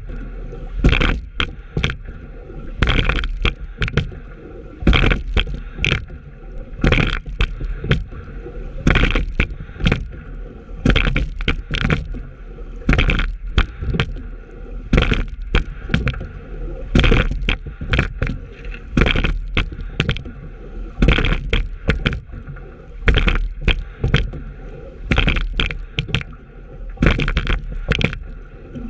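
Sculling shell being rowed at a steady rate, about one stroke every two seconds: each stroke brings a burst of oar-blade splash and oarlock knock. Between strokes there is the steady wash of water along the hull.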